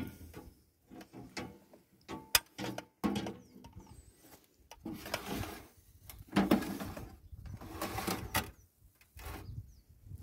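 Stainless steel roasting tray being handled and slid onto a smoker's wire rack: irregular knocks, clinks and scrapes of metal on metal, with a sharp click about two seconds in.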